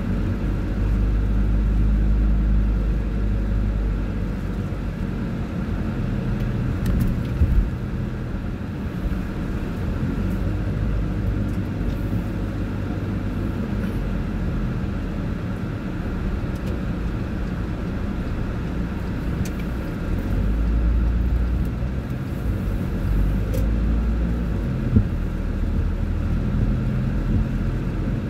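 Car driving on a wet road in the rain: a steady low rumble of engine and tyres. There are two sharp knocks, one about a quarter of the way in and one near the end.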